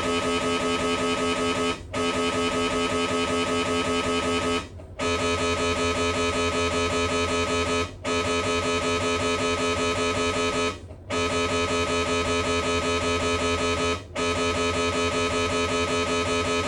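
Siemens Magnetom Spectra MRI scanner's gradient coils buzzing in a loud, pitched, rapidly pulsing tone during a scan sequence, cut by a short pause about every three seconds.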